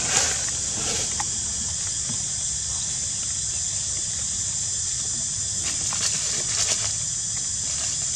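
Steady high-pitched insect drone, with a few faint clicks and rustles.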